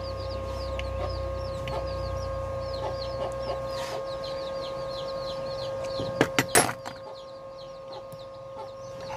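Rapid high chirping of birds, each note sliding down in pitch, over a steady hum. A few sharp metallic clicks about six seconds in come from small metal torch parts being handled.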